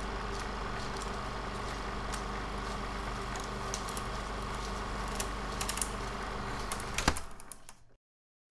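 Steady electrical hum with a hiss and scattered crackling clicks, ending in a sharp click about seven seconds in, then fading to dead silence.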